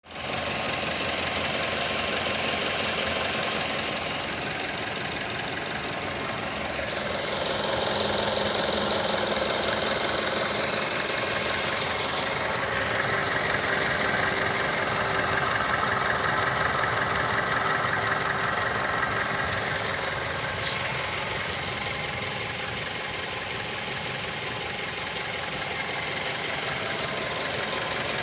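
2006 Mazda3's 2.3-litre four-cylinder engine running, louder from about seven seconds in until about twenty seconds, with one short click near the end. The owner reports a strange engine noise around 3000 rpm.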